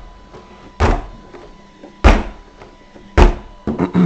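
A 1/10 RC short course truck bounced down onto a hard surface to test its oil-filled shocks, its chassis and wheels landing in sharp thuds about once a second, four times, the last two close together.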